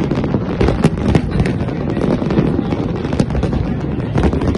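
Aerial fireworks bursting in quick succession: a continuous rumble of booms with sharp cracks several times a second.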